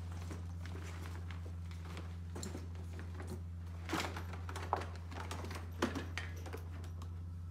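A roll-up rescue stretcher being unrolled on the floor, its straps and buckles pulled out: scattered small clicks, taps and rustles, with a few louder knocks about four, five and six seconds in, over a steady low hum.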